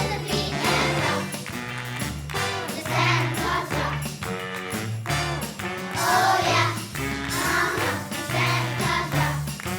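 Children's choir singing a Christmas song over instrumental accompaniment with a steady, stepping bass line.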